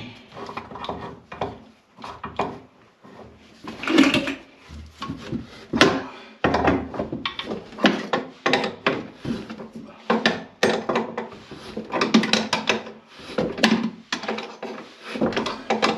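Repeated knocks, clunks and scraping of wood and other hard objects being handled and moved about, denser in the second half, with a couple of louder knocks around four and six seconds in.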